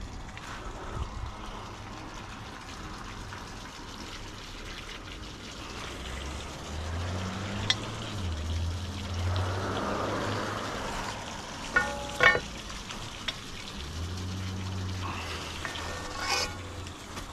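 Long curb key worked in a buried water-shutoff valve box to turn the water back on, giving a few sharp metal clicks and knocks over a steady hiss. A low hum comes in twice, for several seconds each time.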